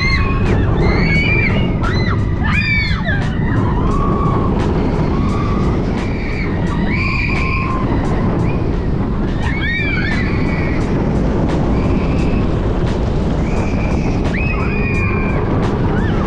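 Onboard a Helix steel roller coaster train in motion: heavy wind rushing over the microphone and the train rumbling along the track, with riders screaming and whooping several times, most of all in the first few seconds and again about ten seconds in.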